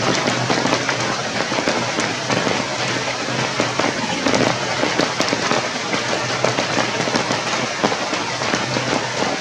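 Steady rain pattering, a dense close crackle of drops falling on leaves and ground.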